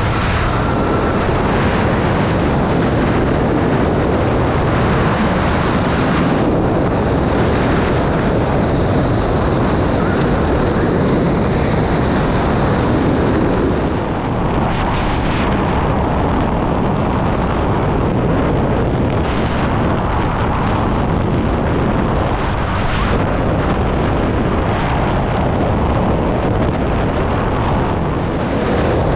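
Skydiving freefall wind blasting the camera microphone: a loud, steady rushing roar with a few brief surges.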